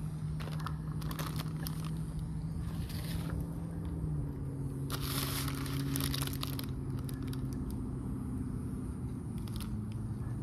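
Crinkling and rustling of a fast-food sandwich wrapper and bites into a chicken sandwich. The wrapper noise comes in bursts, loudest about five to six seconds in, over a low steady hum.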